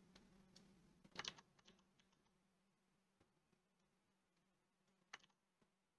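Near silence, broken by faint clicks from computer use while drawing: a short cluster about a second in and a single click near the end.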